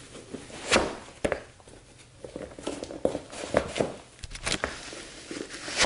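Slip-on sneakers being pulled onto the feet and set down on a wooden floor: a few soft thumps and scuffs of the soles on the boards, with rustling of the shoes and clothing in between.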